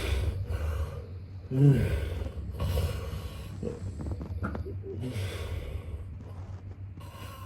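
A man snoring: a loud, rasping snore on the in-breath about one and a half seconds in, followed by breathy exhales, then a quieter cycle of breathing.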